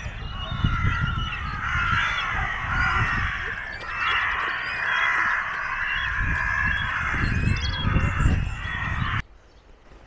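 A large mixed flock of gulls and crows calling over one another in a dense, continuous clamour of short cries and caws, with low gusts of wind rumbling on the microphone. The calls stop abruptly a little after nine seconds.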